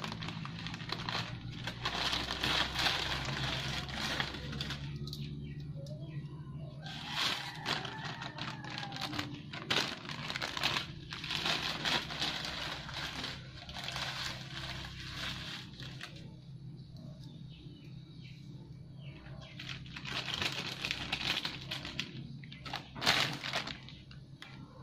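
Plastic packaging crinkling and rustling in bouts as dried rice noodles for pancit palabok are pulled out and dropped into a wok of water, over a steady low hum.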